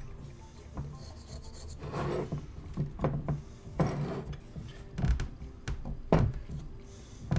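Small hand chisel scraping over a set Ultracal 30 gypsum-cement face cast, cleaning off excess material. There are two longer scraping strokes about two and four seconds in, and several sharp ticks where the blade catches or chips flake off.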